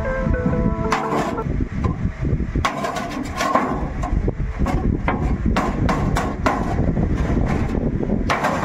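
Chisel blade cutting through the sheet metal of a large square tin can: a dozen or so sharp metallic knocks and scrapes at irregular intervals.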